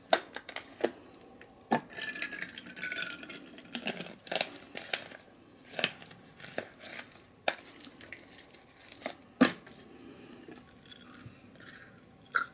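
Plastic water bottle crinkling and clicking as it is handled and its cap twisted, with scattered small clicks and knocks and one sharp knock about nine seconds in.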